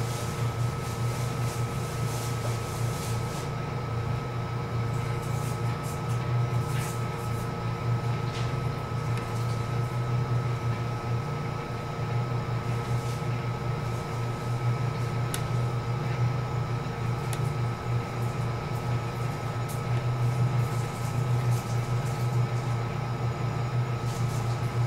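Stationary JR East E233-series electric train with its onboard equipment running: a steady low hum with a thin steady whine above it and a few faint clicks.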